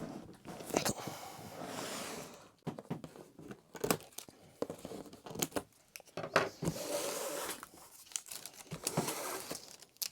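Packaging being torn and crumpled, with rustling and scattered sharp knocks as things are handled.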